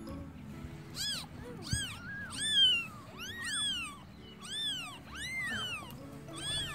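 Baby kittens mewing: about eight short, high-pitched mews in a row, each rising and then falling in pitch.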